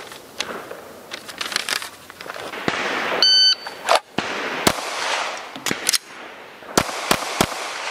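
A shot timer beeps, and about a second later a pistol fires a single shot. After a pause of about two seconds with a few clicks of a magazine change from slide lock, three quick pistol shots follow, about a third of a second apart.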